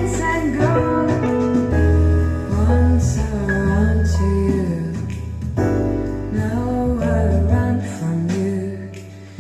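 Small live band playing a slow jazz-lounge arrangement, keyboard and bass carrying the tune with a vocal line, recorded through a phone's microphone. It grows quieter near the end.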